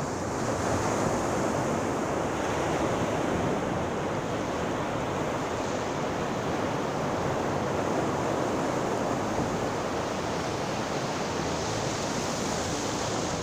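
Sea surf washing onto the shore: a continuous rush of waves at a steady level, without clear breaks between them.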